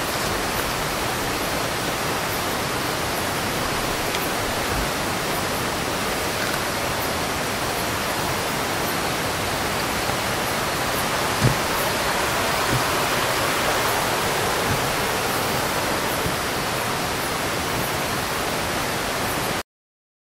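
Steady rushing of river water flowing over rocks, with a single knock about halfway through. The sound cuts off suddenly near the end.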